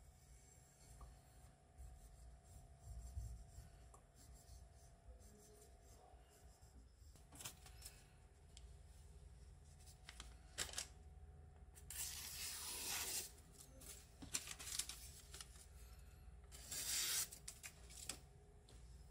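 Newspaper crumpling and rubbing along the blade of a deba knife, in two noisy bursts a little after halfway and near the end, with light knocks and taps between.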